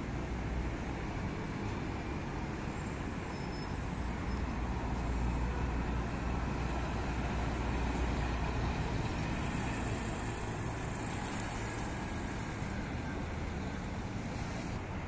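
Steady road traffic noise from cars and trucks, with a low engine rumble that grows louder around the middle and then eases.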